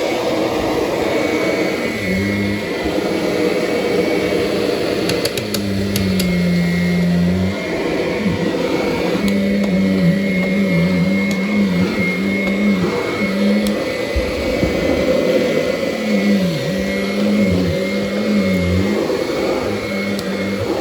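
Kirby upright vacuum cleaner running on carpeted stair treads, with a steady high whine over a low motor hum that dips and recovers in pitch several times as the nozzle is worked over the carpet.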